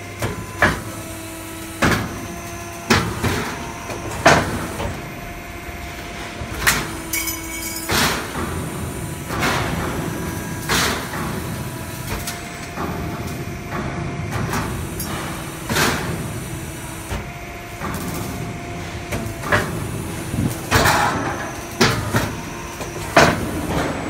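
Automatic HVAC duct production line for galvanized sheet steel running: a steady machine hum with a few held tones, with irregular loud metallic clanks and bangs from the sheets and the shearing and folding machinery every second or two.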